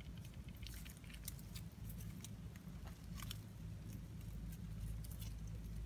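Mud crab being handled and tied with twine by hand, giving scattered small clicks and crackles over a low steady rumble.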